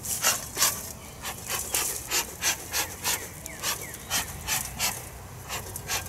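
Bee smoker's bellows pumped in quick, even puffs, about three a second, each a short hiss of air.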